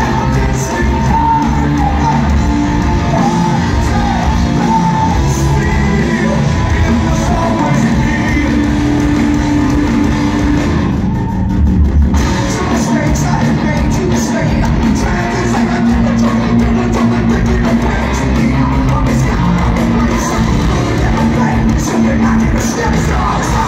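A rock band playing live in a large hall: electric guitars, bass and drums with a singer's vocals over them. About eleven seconds in there is a brief break where only the low end sounds, then the full band comes back.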